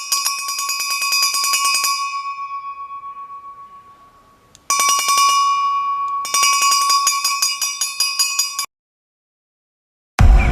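Electric alarm bell ringing with a rapid, even rattle of hammer strikes. It rings for about two seconds and dies away slowly, then rings again for about four seconds and cuts off suddenly. Music starts right at the end.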